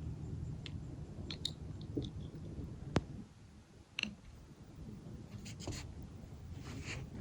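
Lagoon ambience: a steady low rumble with scattered small clicks and ticks, one sharp click about three seconds in and another a second later.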